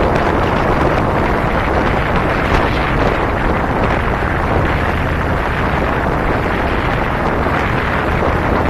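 Steady wind rushing over the microphone of a moving cruiser motorcycle, with the motorcycle's engine and road noise underneath.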